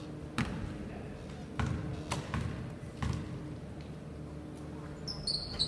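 Basketball bounced on a hardwood gym floor about five times at an uneven pace during a free-throw routine. Near the end come short high squeaks of sneakers on the court.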